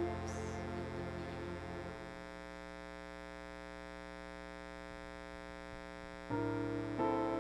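A held keyboard chord fades away, leaving a steady electrical mains hum. About six seconds in, the keyboard starts playing chords again.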